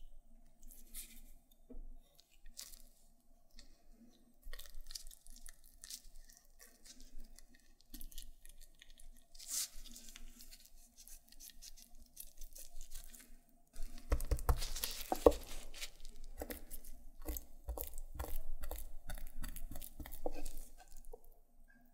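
Kitchen knife cutting a raw chicken wing off its bone: soft, wet slicing and tearing of skin and meat, with light clicks. About two-thirds of the way through it gets louder and busier, with scraping and clicks as the blade scrapes along the bone and the meat is pulled down.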